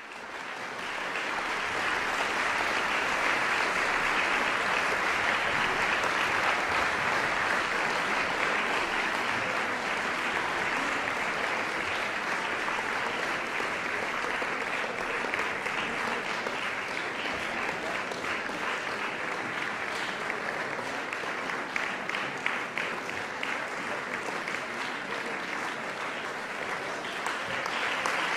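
Audience applauding, a dense steady clapping that thins out in the last third so single claps stand out, then swells again near the end.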